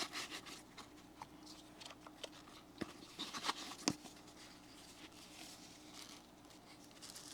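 Faint handling noises as a small item is unpacked: scattered light taps and clicks with soft rustling of packaging, two sharper taps near the middle.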